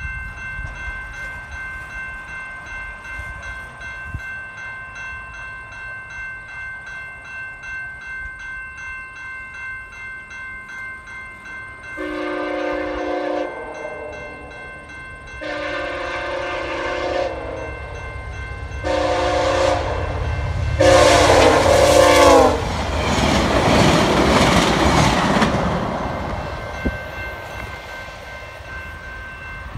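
Level-crossing warning bell ringing steadily, then an approaching train's multi-tone air horn sounds the grade-crossing signal: long, long, short, long. The train then rushes through the crossing with loud wheel and rail noise that fades away.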